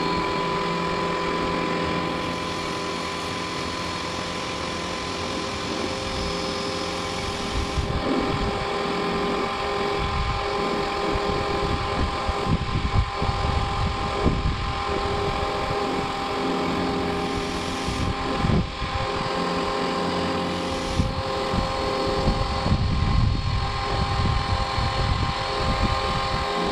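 Powerworks 1700 PSI electric pressure washer running, its motor and pump giving a steady whine, while the wand, fitted with a soap bottle attachment, sprays water onto a car's body. The hiss and splash of the spray rise and fall as the stream moves over the car.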